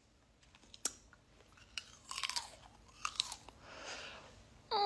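Biting into and chewing frozen green grapes: a sharp crack about a second in, then icy crunching in uneven bursts. A short falling vocal sound comes near the end.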